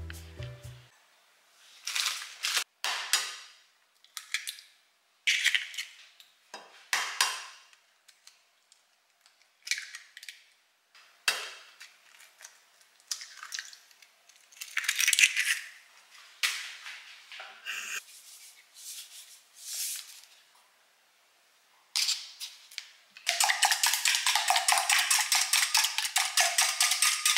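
Kitchen prep sounds: scattered clinks, scrapes and rustles of utensils and dishes with short pauses between. Near the end comes a fast, steady run of rapid strokes.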